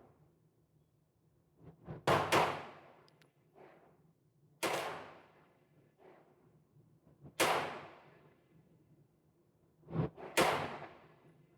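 9mm AR-15 pistol firing five loud shots: two in quick succession about two seconds in, then single shots every two to three seconds. Each shot has a long echoing decay, and fainter reports fall between them.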